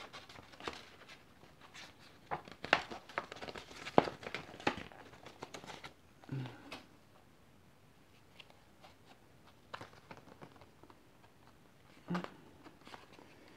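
Paper rustling and crinkling as a paperback manga volume is handled, its paper slip fitted back on and its pages flipped, with many sharp crackles, busiest in the first half and sparser after. A short low hum from a person twice.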